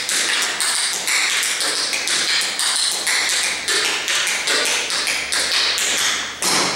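Tap shoes striking a hard floor in a fast, rhythmic run of taps during a tap dance routine, ending with one loud stamp near the end.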